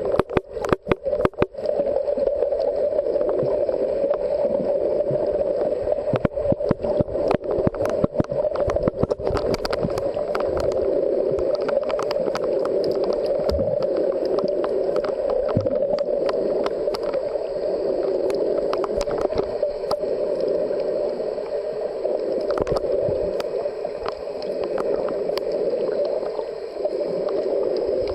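Muffled underwater noise heard through a submerged camera: a steady dull wash with brief dropouts about a second in and scattered sharp clicks and crackles, thickest a few seconds later.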